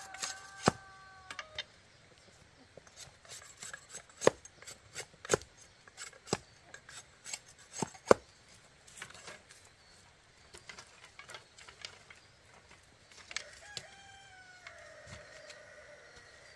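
A rooster crowing, once at the start and again in a longer crow that falls slightly in pitch near the end. Scattered sharp knocks and taps come in between, the loudest about eight seconds in.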